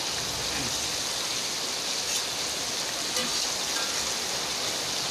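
Fish frying in hot oil in a wok: a steady sizzle.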